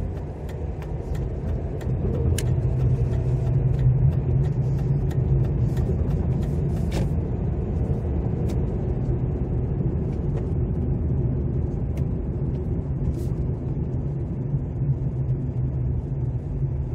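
Car interior sound while driving in town: a steady low engine and tyre rumble that rises about two seconds in as the car pulls away, then holds even while cruising. Light, regular ticks run through about the first seven seconds.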